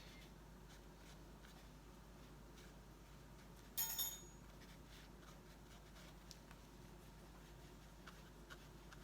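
Faint scratching of a watercolour brush on paper, with a brief louder clatter with a slight ring about four seconds in.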